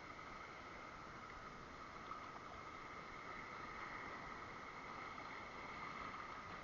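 Steady faint background ambience: an even hiss with a constant high-pitched drone, no distinct events.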